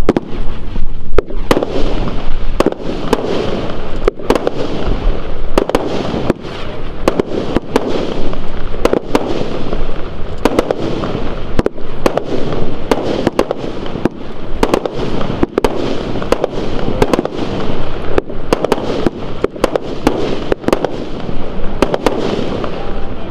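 Geisha Pyrorebels consumer firework cake firing: an unbroken string of launch shots and small aerial bursts, about two a second.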